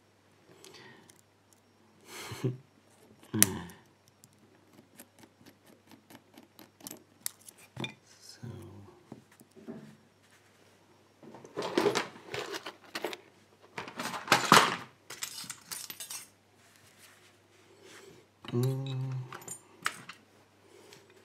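Light metal clicks, clinks and scrapes as a brass Schlage Everest lock cylinder is handled and taken apart with small tools, with a few louder rattling clatters past the middle.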